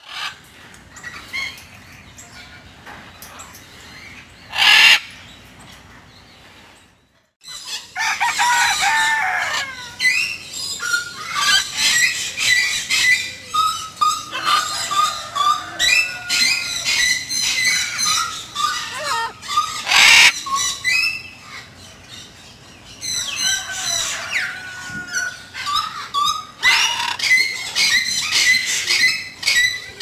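Parrots in an aviary calling and chattering in many short chirps. There is a loud harsh call about five seconds in and another about twenty seconds in.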